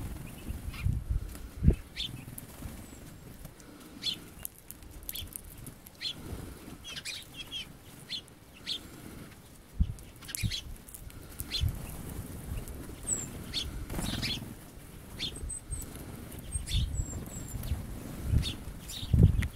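Small finches, Eurasian bullfinches and common redpolls, fluttering their wings as they land on and leave a hand full of sunflower seeds. Scattered soft wingbeat thumps mix with short high chirps and calls.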